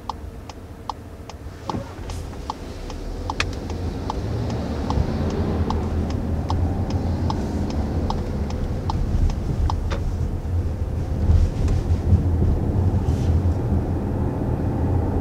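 A turn-signal indicator ticking steadily inside the cabin of a 2020 Volkswagen Tiguan, about two to three clicks a second, stopping about ten seconds in. Under it, the low rumble of engine and road noise swells as the SUV pulls away and gathers speed.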